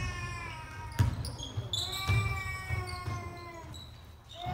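Basketball dribbled on a hardwood gym floor, thumping about twice a second, with a sharper bounce about a second in. Sneakers squeak on the floor as players move.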